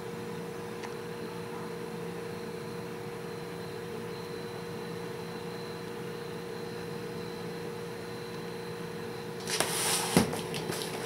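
Steady low hum of room tone for most of the time; then, about nine and a half seconds in, a couple of seconds of loud rustling handling noise with several sharp clicks and one knock.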